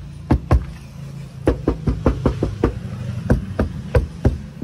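Repeated knocking on the inner door panel of an Alto car lined with sound-damping sheets, about a dozen irregularly spaced knocks over a low steady hum, testing how well the sheets have deadened the door metal.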